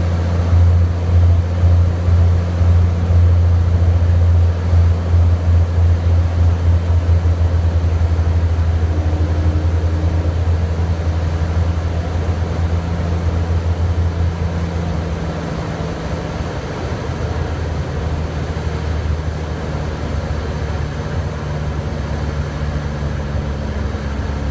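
Cirrus SR22's six-cylinder piston engine and propeller heard from inside the cabin during landing: a low, steady drone that throbs through the first half. About fifteen seconds in, as the plane rolls out on the runway, it drops a little in level and shifts slightly in pitch.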